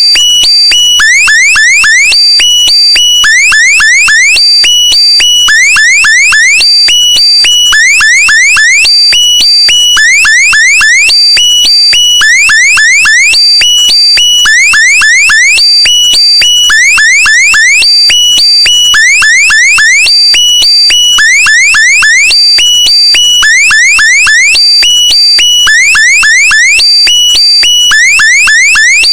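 Loud electronic alarm tone, its pattern repeating about once a second: each repeat is a quick run of four or five short rising chirps over a steady high beep.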